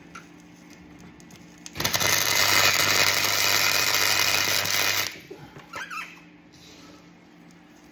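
A welding arc running for about three seconds with a steady crackling hiss and hum, then stopping suddenly: a weld being laid around a bolt to take hold of a stripped hinge screw.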